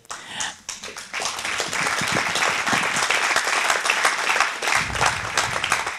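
Audience applauding: many hands clapping together, swelling about a second in, holding steady, then thinning out near the end.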